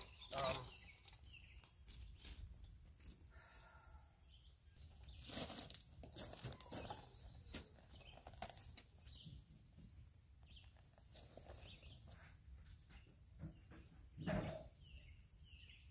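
Steady high-pitched buzz of an insect chorus, with scattered small clicks and handling knocks: a sharper knock just after the start and a soft thud about 14 seconds in.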